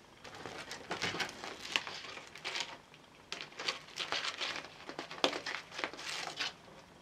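Dried tomato leather being peeled off a plastic Ezidri dehydrator tray and handled: irregular crinkling and rustling with sharp clicks, pausing briefly about three seconds in.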